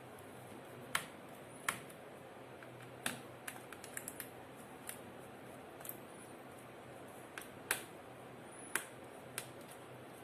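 Scattered sharp clicks and small metallic taps, about a dozen in irregular succession with a quick cluster around the middle, from a small screwdriver loosening the retaining screws of an HP Envy 15 laptop's CPU/GPU heatsink.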